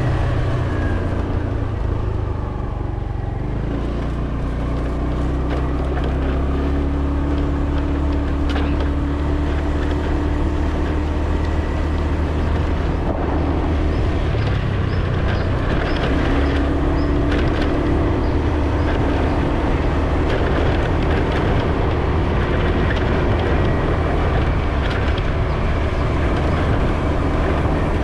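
Vehicle engine running with road noise while driving; the engine note eases off briefly about three seconds in, then holds steady.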